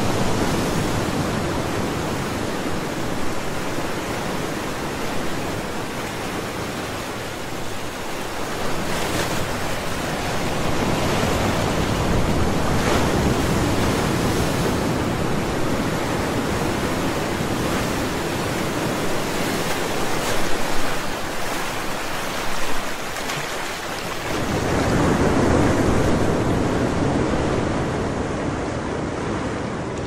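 Ocean surf: waves breaking and washing in as a continuous rushing wash that swells and ebbs, with a fresh wave surging in after a brief lull about three-quarters of the way through.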